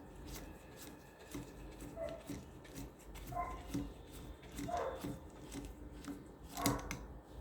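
A dog barking faint, short barks every second or so, with light clicks and taps of small parts being handled.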